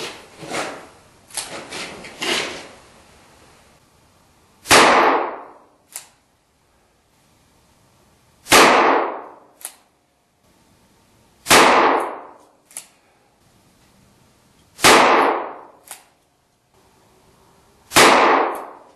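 Five shots from a .32 H&R Magnum handgun firing handloads with 60-grain Gold Dot bullets, spaced about three to four seconds apart, each with a short ringing tail and a faint click about a second after it. A few lighter knocks of handling come in the first couple of seconds.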